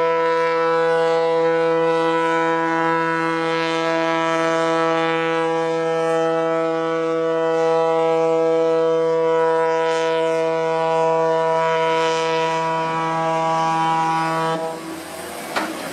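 A large ship's horn sounding one long, steady blast at a single deep pitch with a rich stack of overtones, cutting off about a second before the end. It is the horn of a cargo ship being run onto the beach for scrapping.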